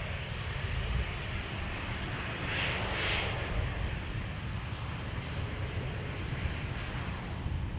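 Steady noise of a jet airliner's engines, a low rumble under a hiss, with a brief brightening in the hiss about two and a half to three seconds in.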